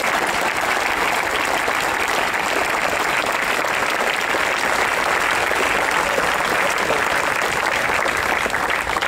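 Outdoor crowd applauding steadily after a speech, a dense patter of many hands clapping at an even level.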